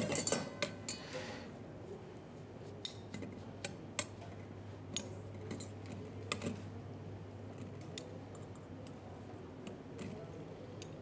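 Scattered light taps and clinks of utensils on plates and dishes while food is plated, over a steady low hum.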